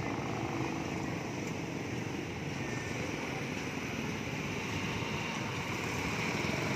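Steady vehicle running noise while travelling along a road: an even engine and road rumble with no distinct events.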